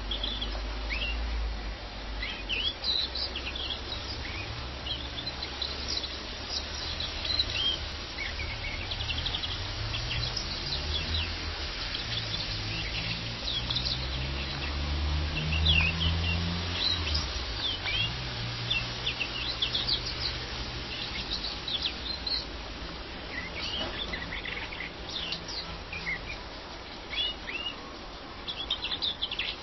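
European greenfinch twittering and chirping in a long, broken run of short notes. Under it runs a low hum that rises in pitch about halfway through and fades out a few seconds later.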